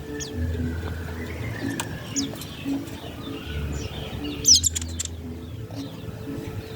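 Birdsong recording for training songbirds: short, quick high chirps and falling whistles, with a thick cluster about four and a half seconds in, over a low, repeated cooing in the background.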